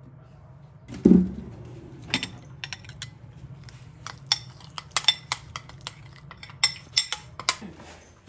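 Metal spoon clinking and scraping against a ceramic bowl in many short, irregular clicks while miso, garlic, sugar and sake are stirred into a marinade, after a dull knock about a second in.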